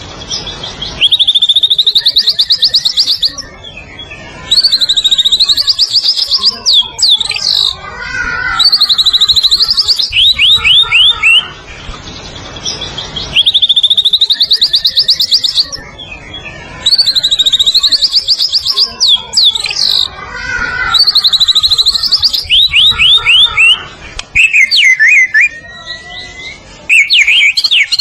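White-rumped shama (murai batu) singing: loud phrases of rapid, high trilling and swooping notes, recurring every three to four seconds with short gaps between.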